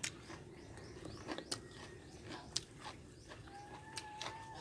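Faint chewing and crunching of fried fish-cake rolls, with scattered small clicks. Near the end an animal gives a thin, drawn-out whine.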